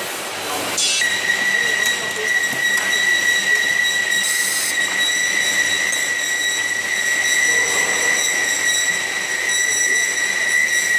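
Inline pail filling and lidding machine running: a steady high-pitched whine sets in about a second in and holds, with a short hiss a little past four seconds in.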